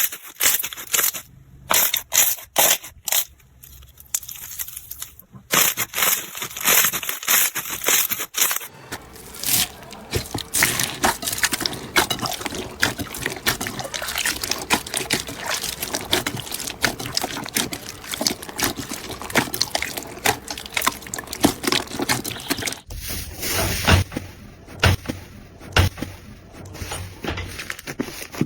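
Hands pressing, poking and squishing slime: sharp pops and clicks at first, then a dense, continuous crackling, and near the end deeper, wetter squishes as another slime is worked.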